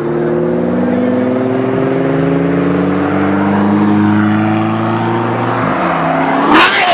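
Loud supercar engine running under way with a steady, slowly drifting note, then a sudden sharp rev about six and a half seconds in, the loudest part.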